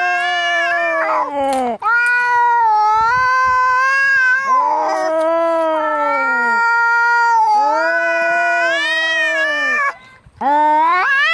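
Cats caterwauling in a fight: long, drawn-out yowls, each wavering and then sagging in pitch. There is a brief break about ten seconds in, then a rising yowl near the end.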